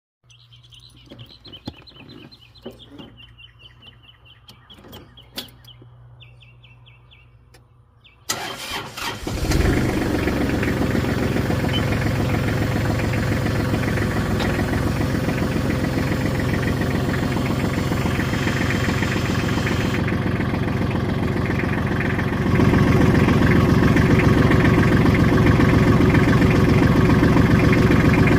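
Kubota L3130 tractor's diesel engine cranked by the starter about eight seconds in, catching within about a second and settling into a steady run; it steps up to a louder, faster run near the end. Before the start, a run of high-pitched chirps and a few faint clicks.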